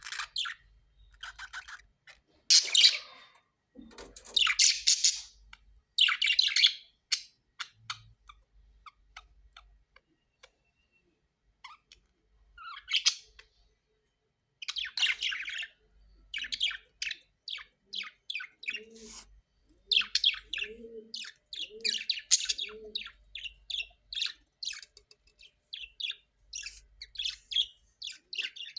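Parrots calling in short chirps and squawks, in bursts with brief pauses between them. The calls come thicker and faster in the second half.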